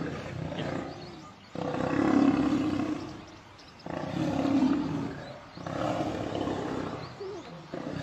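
Lions growling during a fight as several lionesses pin and bite a male lion on his back, in repeated long, low growls of a second or two each.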